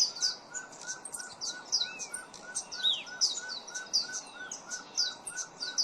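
An Andean pygmy owl gives a steady run of short hollow toots, about four a second. Over it come many high, thin chips and twitters from small birds mobbing the owl.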